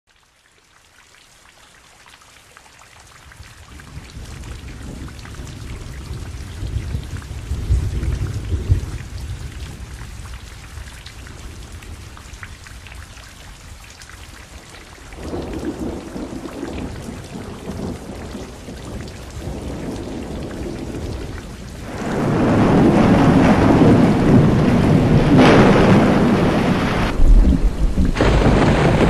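Thunderstorm: steady rain with rolling thunder, fading in at the start. A deep rumble of thunder swells about eight seconds in, and from about twenty-two seconds the rain and thunder grow much louder, with a sharp crack near the end.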